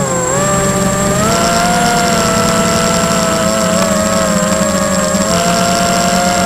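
Tarot 250 racing quadcopter's brushless motors and propellers whining, heard from the onboard camera. The pitch dips at the start and climbs back about a second in as the throttle changes, then holds fairly steady with small wavers.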